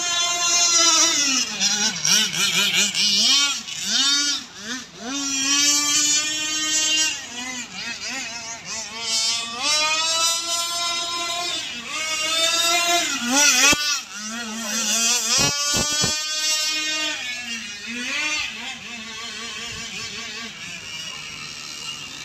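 Radio-controlled racing boat engines running at high revs, their pitch sweeping up and down again and again as the boats throttle and turn. The sound is lower and steadier near the end.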